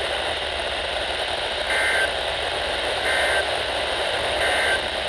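NOAA Weather Radio end-of-message signal: three short, identical two-tone digital data bursts about 1.4 seconds apart, the EAS/SAME code that closes the Required Weekly Test, heard over steady radio hiss and static from weak reception.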